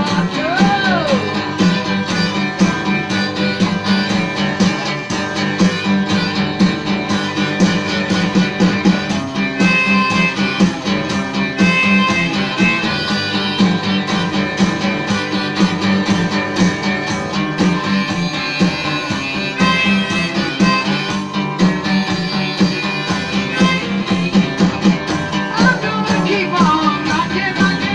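Rockabilly-style rock-and-roll song with a steady beat.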